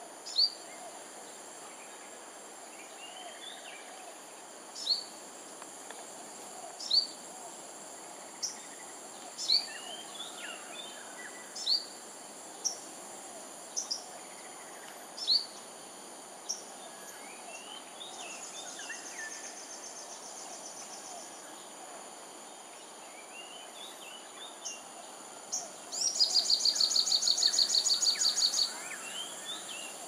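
Birds calling outdoors: a series of short, sharp, high chirps that drop in pitch, repeated every second or two, with softer chirps between them. A faint steady buzz comes in about two-thirds of the way through. Near the end a loud, rapid pulsing trill lasts about three seconds.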